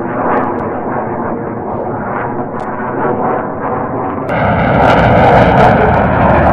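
Fighter jet engine noise, a heavy steady roar. About four seconds in it turns suddenly louder and hissier.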